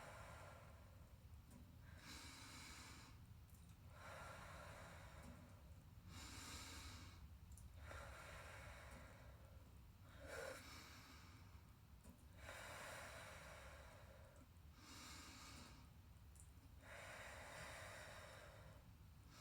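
Faint, slow, deep breathing: repeated breaths in through the nose and long blows out through the mouth, the 'candle breath' of blowing out a candle.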